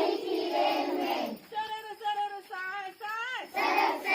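Children singing a Hindi rhyme together in chorus, in short sung phrases.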